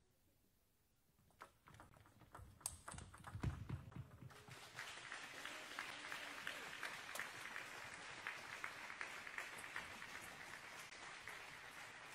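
Celluloid-type table tennis ball clicking off bats and table in a short rally, then spectators applauding the point won.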